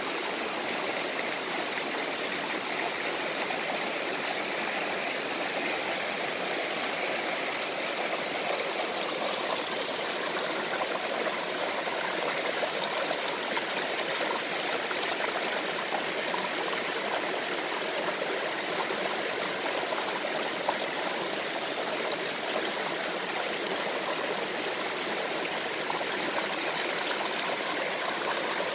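Small waterfall and stream: water rushing and splashing over rocks in a steady, even flow.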